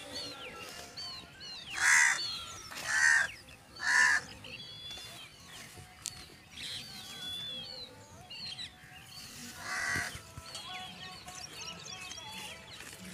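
Wild birds chirping throughout, with three loud calls a second apart about two seconds in and another near ten seconds.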